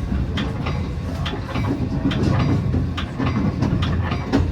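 Metra commuter train heard from inside the passenger car: a steady low rumble of the train rolling, with irregular clicks and knocks as the wheels cross rail joints and switches on the approach to the terminal.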